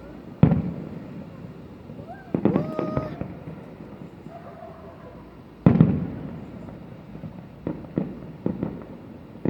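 Fireworks bursting in the distance: two loud bangs, about half a second in and a little before six seconds, each trailing off in a fading rumble, with a burst of crackling between two and three seconds and a few smaller pops near the end.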